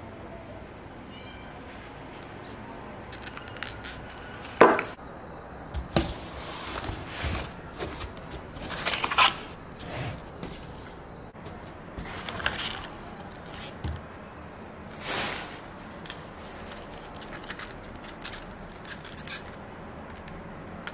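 Paper packing and a clear plastic candle tray rustling and crinkling as they are handled and unpacked from a cardboard box. The sound comes as a series of short crinkles and rustles, the loudest about four and a half seconds in.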